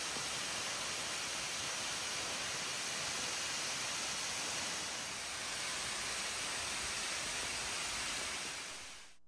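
Steady, even rushing noise that fades out near the end.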